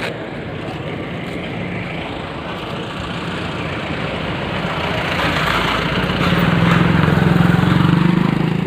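Road roller's engine running steadily, growing louder about halfway through.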